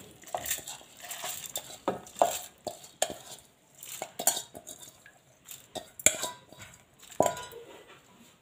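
Stainless steel bowls and utensils clinking and knocking now and then as they are handled, with two brief metallic rings about six and seven seconds in.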